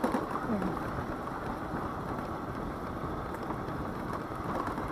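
Steady rushing wind and road noise from riding a Daelim Witty 100 scooter, with no distinct engine note standing out.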